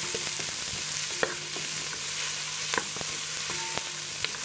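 Chopped red onions sizzling in hot oil in a stainless steel pot while a wooden spoon stirs them. The spoon scrapes and taps against the pot several times.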